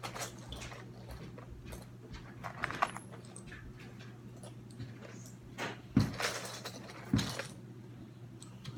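Loose Lego pieces clicking and rattling as someone rummages through them for a part, with two louder knocks about six and seven seconds in.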